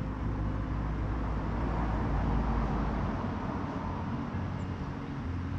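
Steady rush of wind and road noise on the camera microphone of a bicycle being ridden, swelling about two to three seconds in.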